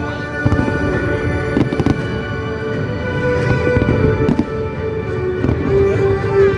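Aerial fireworks going off in a display: repeated sharp bangs and crackle over loud sustained music.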